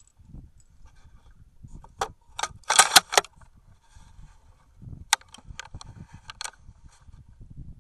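Mechanical clicks and rattles from the rifle being handled, picked up through the camera mounted on it. There is a quick, loud run of clicks about three seconds in, and a lighter run of clicks a couple of seconds later.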